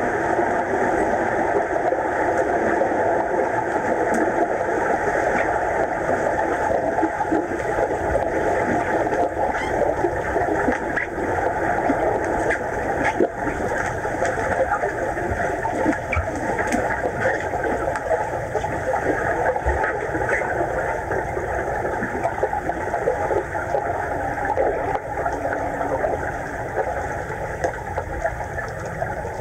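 Muffled underwater sound of a swimming pool, heard through a camera lying on the pool floor: a steady rushing hiss with faint scattered clicks and knocks.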